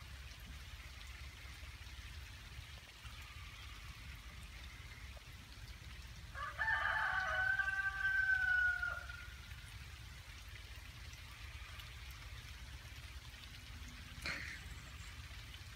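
Steady rain falling, with a rooster crowing once about six seconds in, one long call of about two and a half seconds that sags in pitch at the end. A single sharp knock near the end.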